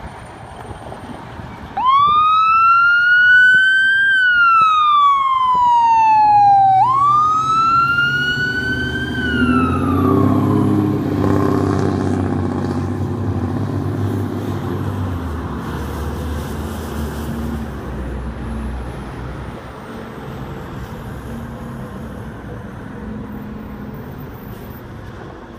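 Whelen electronic siren on a fire department ladder truck sounding two wail cycles, each rising and then falling, the second cut off on the way down: a brief courtesy burst, not an emergency run. Then the truck's diesel engine pulls away and fades.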